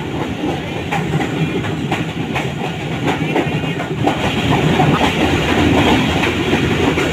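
Passenger train running along the track: a steady loud rumble with scattered irregular clacks from the wheels and carriage.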